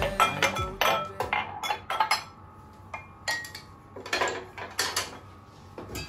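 Clear glass tumblers and mugs clinking against each other and the counter as they are picked up and set down: a quick run of sharp clinks with short ringing in the first two seconds, then a few more scattered clinks.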